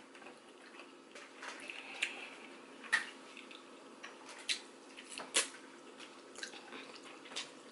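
Quiet eating sounds: a person eating spicy instant noodles off a fork, with scattered wet mouth clicks and smacks, a little more than one a second.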